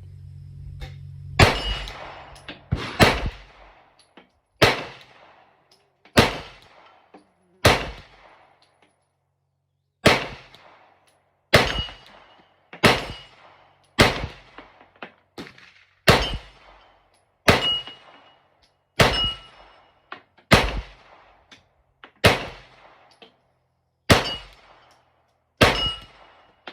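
Glock 45 9mm pistol firing a string of about twenty shots, roughly one a second, with a pause of about two seconds about a third of the way through.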